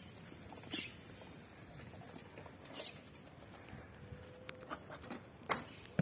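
Faint rustling and light ticks, then a sharp snap about five and a half seconds in and a shorter one at the very end: the string of a traditional wooden bow released as an arrow is shot.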